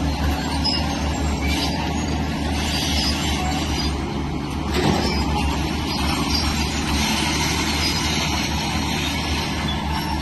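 Heavy tracked earthmoving machinery working: a diesel engine running steadily under load, with a higher grinding noise that swells and fades and a brief knock about five seconds in.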